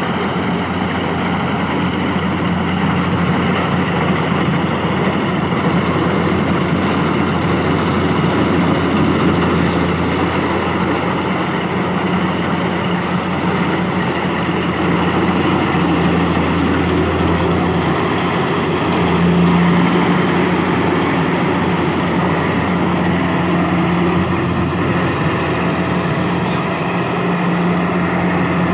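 Kubota DC70 combine harvester's diesel engine and threshing machinery running steadily under load, a continuous low drone with slight swells in level.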